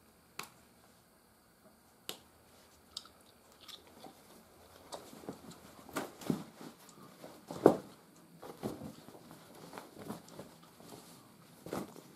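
Soft buckskin being handled, turned and laid flat: irregular rustling and flapping of the leather with scattered light clicks, the loudest rustle just before the middle.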